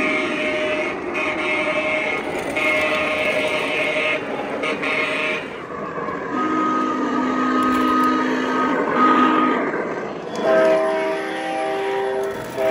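O-scale model locomotives' onboard sound systems sounding diesel horn blasts in long and short sequences, each horn a different chord, over the running noise of the trains on the track.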